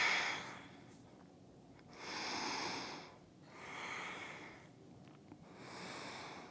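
A person breathing deeply and audibly during a held yoga pose: slow breaths in and out, four in all, each lasting about a second.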